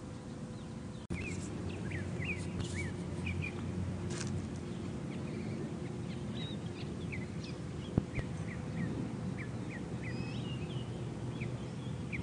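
Small birds chirping, many short high chirps scattered throughout over a steady low background hum, with one sharp click about eight seconds in.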